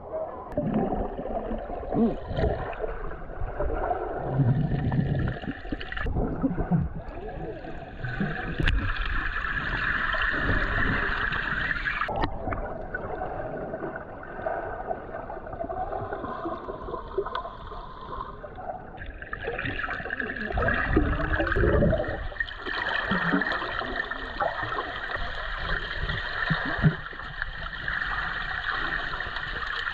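Water gurgling and sloshing around a GoPro action camera, sounding muffled, with a few sharp knocks against the camera.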